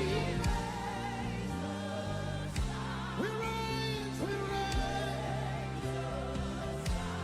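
Gospel worship music: sung vocals over sustained keyboard chords, with drum hits about every two seconds.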